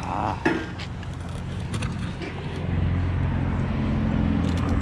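A motor vehicle's engine running as a steady low hum, growing louder about three seconds in, with a sharp knock about half a second in and a few light clicks near the end.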